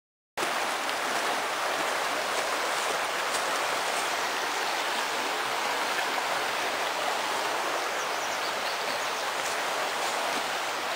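Creek running high in flood: fast water rushing steadily, a constant even hiss.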